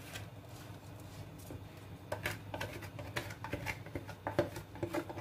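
Chopped glutinous rice being dry-roasted in a wok: irregular light ticks and scrapes, more frequent from about two seconds in, over a low steady hum.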